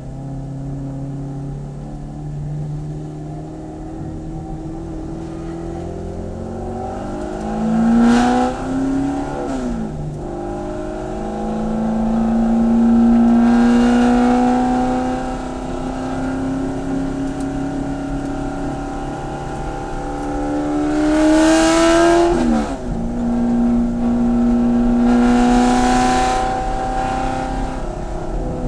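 Corvette C7 racecar's V8 engine at full throttle on track, its note climbing through the revs and dropping abruptly at gear changes about twice, then pulling up again.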